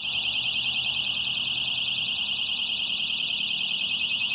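Electronic alarm going off without a break: a shrill, high-pitched tone with a fast, even flutter.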